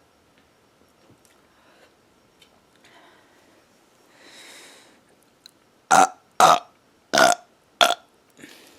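A woman burping: four short, loud burps in quick succession, starting about six seconds in, after a softer airy sound a little earlier.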